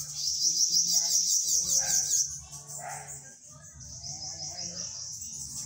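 Bananaquit singing its buzzy, insect-like 'cigarrinha' song: a high, fast trill that lasts about two seconds, then comes again more faintly from about four seconds in.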